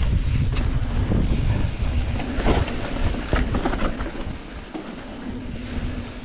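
Norco Torrent steel hardtail mountain bike riding fast over a dirt singletrack: low rumble of wind on the microphone and tyres on the trail, with several clattering knocks from bumps. The rumble eases off after about four seconds.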